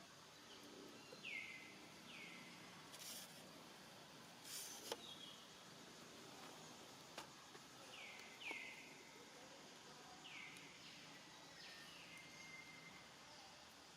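Faint outdoor ambience: short high chirping calls, each falling in pitch, repeat every second or two, with a couple of brief hissing rustles in the first third.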